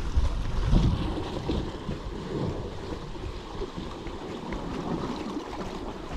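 Wind buffeting the microphone in uneven gusts, over sea waves washing against rocks.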